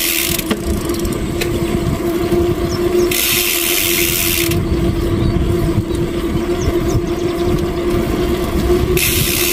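Motorcycle engine running steadily at a constant speed, a even hum over a low road rumble. A higher hiss comes and goes three times.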